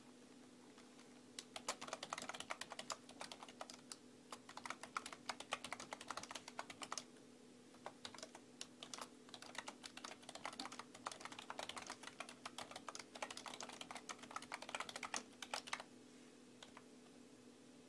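Typing on a computer keyboard: rapid runs of keystrokes starting about a second and a half in, a short pause near the middle, then another long run that stops about two seconds before the end, over a faint steady hum.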